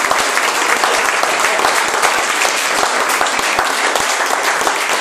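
Audience applause: many people clapping at once, steady and loud.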